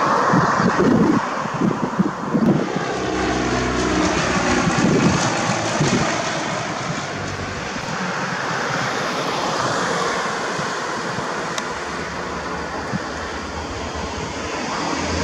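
Piper PA-28-161 Warrior II light plane landing, its four-cylinder Lycoming piston engine running at low power. Wind gusts on the microphone in the first couple of seconds.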